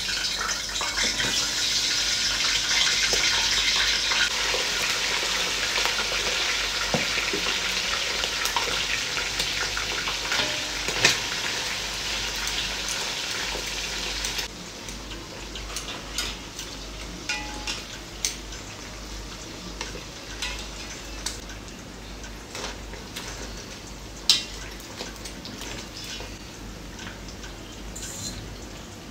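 Chicken pieces frying in hot oil in a pot: a loud, dense sizzle that drops abruptly about halfway through to a quieter crackle. Scattered sharp clicks of metal tongs against the pot and meat, two of them standing out.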